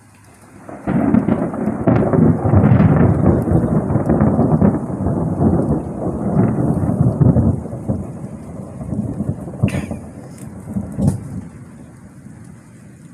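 Loud thunder: a deep rumble breaks in suddenly about a second in, rolls for several seconds, and dies away gradually toward the end.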